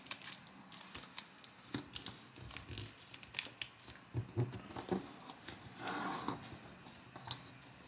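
Origami paper crinkling and rustling under fingers as a flap is opened and pressed flat, a run of faint, scattered small crackles with a slightly longer rustle near the end.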